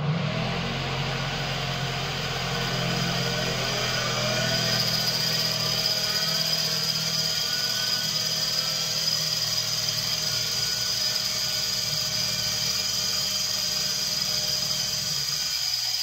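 Electric motor rig running: a battery-driven DC motor spins a rewound washing-machine motor used as a generator, which powers a 300 W washing-machine universal motor. A steady high whine with a hum underneath, rising in pitch over the first few seconds as it spins up; the low hum drops out near the end.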